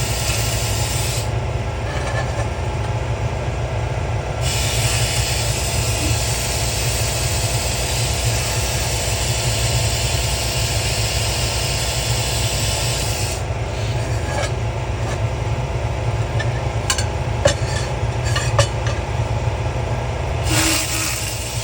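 Pulsed fibre laser ablating corrosion from a brass bell: a steady hissing crackle over a constant low machine hum. The hiss thins out twice, and a few sharp clicks come near the end.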